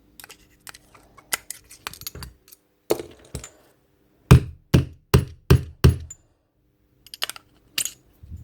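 Light metal clicks and clinks of small parts being worked, then five sharp knocks in quick succession, about two and a half a second, as a jammed part in a DeWalt DCH333 rotary hammer's mechanism is struck to free it. A few more clicks follow near the end.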